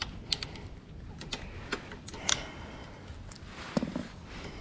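Scattered light clicks and taps of hand tools and metal parts being handled, with a couple of louder knocks, one about halfway and one near the end, while the exhaust is worked on and taken apart.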